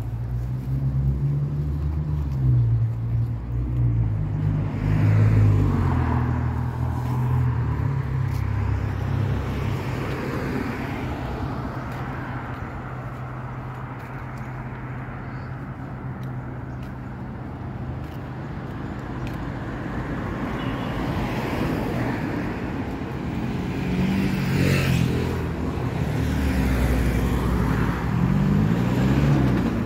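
Street traffic: car engines running and cars driving past. A low engine hum fills the first several seconds, fades to general street noise, then returns near the end, when an engine's pitch rises and falls as vehicles pull away.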